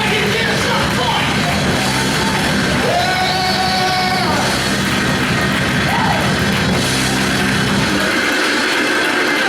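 Live church worship music: a band with singing voices. The low bass notes drop out about eight seconds in.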